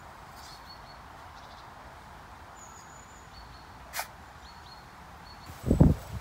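Quiet outdoor ambience with a few faint, short high bird chirps and a single sharp click about four seconds in. Near the end, loud low bumps and rumble on the microphone.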